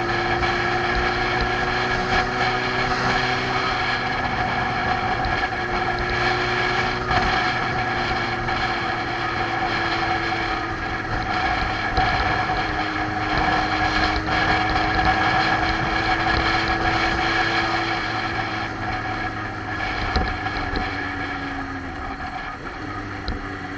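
Motorcycle engine running steadily at road speed, its pitch drifting and shifting a few times as the speed changes.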